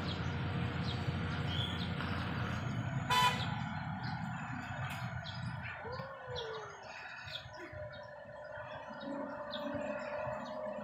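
Outdoor roadside ambience: a low engine rumble for the first few seconds, a short horn toot about three seconds in, then a quieter background with birds chirping repeatedly.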